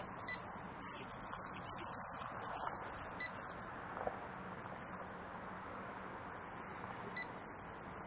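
Three short, high electronic beeps from a shop checkout till, a few seconds apart, over the steady hum of the shop.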